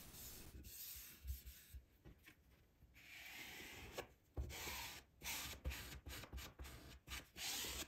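Faint, intermittent rubbing and brushing: a foam brush spreading Mod Podge over a paper template laid on a wooden board, and hands smoothing the wet paper down.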